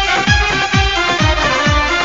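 Instrumental break of a DJ-remixed devotional folk song: a deep electronic kick drum with a quickly falling pitch, about three beats a second, under a sustained keyboard melody.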